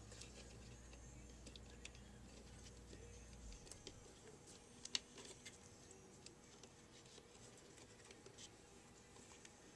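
Near silence with faint scattered clicks and taps of small parts being handled, the loudest about five seconds in. A low hum stops about three and a half seconds in.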